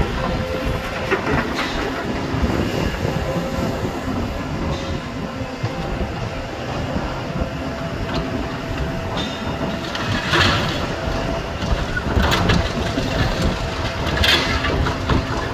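Volvo tracked demolition excavator running, its diesel engine and hydraulics giving a steady rumble with a faint whine, while its crusher jaws break concrete with several bursts of crunching, clattering rubble, the loudest about ten seconds in and twice more near the end.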